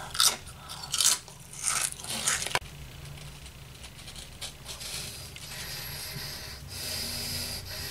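A Pringles crisp being bitten and chewed: a few sharp crunches in the first two and a half seconds. After that come softer, faint scratchy sounds as the crisps are handled.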